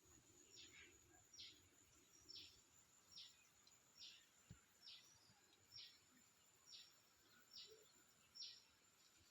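Faint bird call: a short high chirp repeated evenly, a little more than once a second, over a thin steady high hiss.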